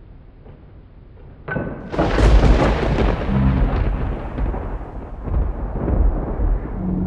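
Toy volcano's eruption sound effect: a loud rumble with hiss that starts suddenly about a second and a half in and keeps going.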